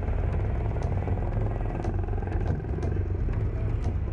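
Town street traffic: motorcycles and scooters running past over a steady engine hum, with faint clatter.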